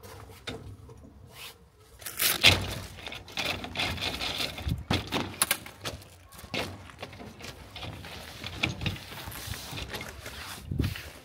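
Folding camp cot being unfolded and set up: a clatter of clicks, knocks and scraping from its metal frame and fabric, starting about two seconds in.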